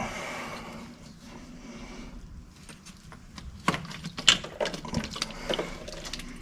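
Hand pipe cutter being turned around a water pipe: a faint steady scraping at first, then from a little past halfway a run of sharp clicks and knocks.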